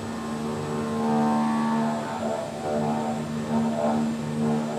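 CNC milling machine cutting a billet aluminum cylinder head under flood coolant: a steady pitched machining drone of spindle and cutter, wavering slightly as the tool moves through the cut.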